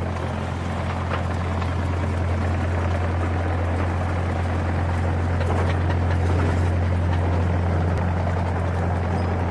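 Excavator's diesel engine running steadily with a deep, even hum.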